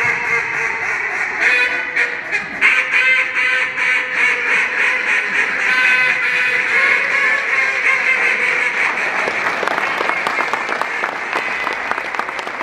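Several wooden duck calls blown at once by contestants, a dense overlapping chorus of quacking hen-duck calls. Clapping builds up under the calls in the last few seconds.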